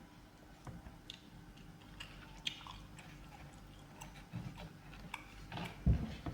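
Close-miked chewing of fried egg, with soft wet mouth clicks scattered through, and a louder low thump near the end.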